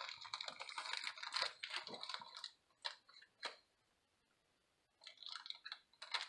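A small packaging wrapper crinkling and tearing as it is opened by hand: a spell of dense crackling, a couple of single clicks, a short pause, then more crackling near the end.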